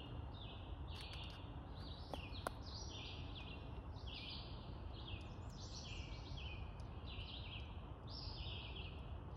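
Songbirds calling in the woods: many short, high chirps overlap and repeat without a break, over a steady low rumble. There are a couple of faint clicks about two seconds in.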